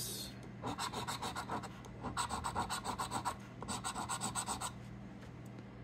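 A round scratcher coin scraping the latex coating off a scratch-off lottery ticket on a table. It goes in three runs of quick back-and-forth strokes, each a little over a second long.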